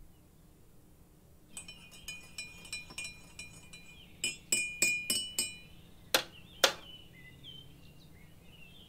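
A metal teaspoon stirring in a ceramic mug, clinking against the sides with a ringing tone about three times a second, the clinks growing louder, then two sharp knocks about half a second apart.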